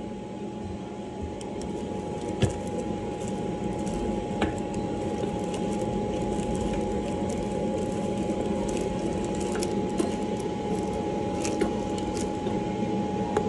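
Electric blower motor of a K&N air flow demonstrator running steadily: a held whine over rushing air, slowly getting louder over the first few seconds, with a few light clicks from handling.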